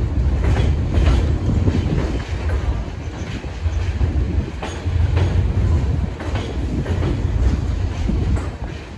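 New York City subway train running on the tracks: a loud low rumble with repeated clicking of the wheels over rail joints, easing off slightly near the end.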